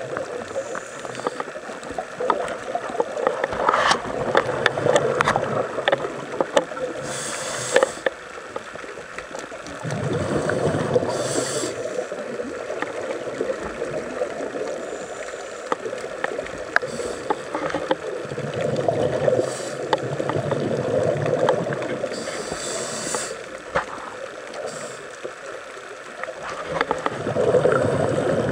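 Underwater sound of a diver's scuba regulator breathing: a hiss on each inhale every several seconds and longer bubbling gurgles on each exhale, with scattered sharp crackling clicks throughout.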